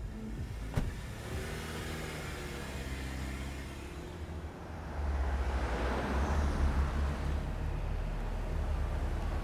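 A car door shuts about a second in. A car's engine and tyres then run as it pulls away, with the rumble growing louder about halfway through as a car drives past.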